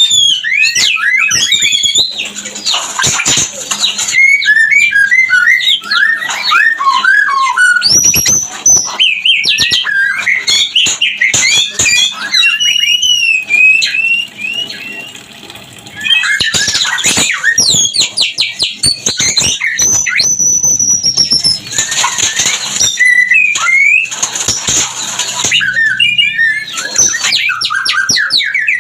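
White-rumped shama song in breeding condition: a fast, varied run of rising and falling whistles broken by harsh, buzzy chatters, with a short softer lull about halfway.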